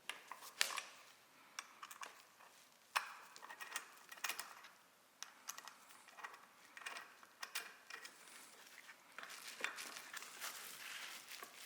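Faint, irregular metallic clicks and taps from an L-shaped hex wrench loosening the screws on aluminium roof-rack crossbar holders.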